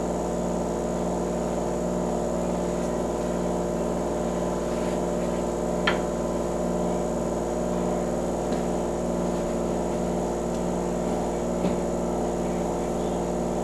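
A steady machine hum made of several held tones. A couple of faint light taps come through as sweet potato slices are laid into a skillet.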